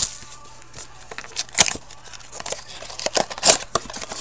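Cardboard hockey-card box being torn open by hand: crackling and crinkling of the cardboard flaps and wrapper, with sharp snaps about one and a half and three and a half seconds in.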